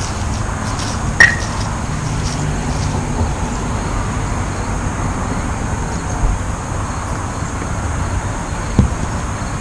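Wooden kubb game pieces: a sharp clack about a second in and a dull thud near the end, over a steady hiss of background traffic noise.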